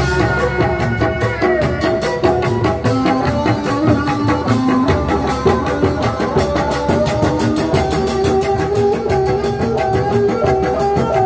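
Sundanese reak music: a set of dogdog drums struck by hand in a fast, steady beat, with a held melody over the drumming.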